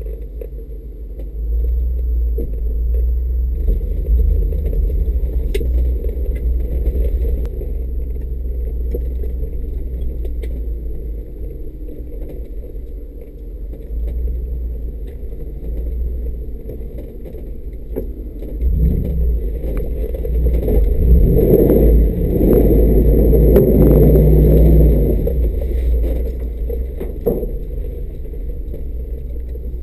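Mercedes G500's V8 engine giving a steady low rumble as the SUV crawls over a rough dirt trail. About two-thirds of the way in there is a louder stretch of crunching, knocking and rattling as the tyres and body go over the uneven ground and debris.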